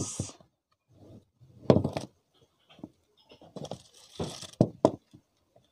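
Hands untying a red ribbon and pulling it off a plastic tray: rustling and scraping of the ribbon and light knocks of the plastic, coming in short bursts, loudest about two seconds in.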